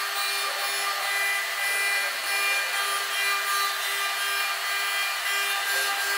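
CNC router spindle with a small end mill cutting a row of slots into a wooden molding strip: a steady high-pitched spindle whine over the hiss of the cut, with a lower tone pulsing about three times a second.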